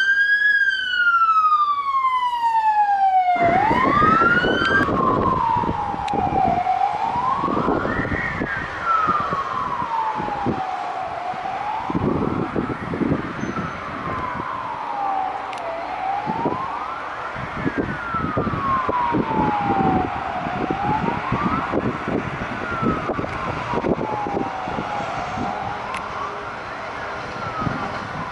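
Mercedes Sprinter ambulance siren on an emergency run, in a slow wail that rises quickly and falls slowly, repeating about every four to five seconds over road noise and scattered knocks. A cleaner siren wail opens the sound and cuts off sharply about three and a half seconds in. The siren slowly grows fainter.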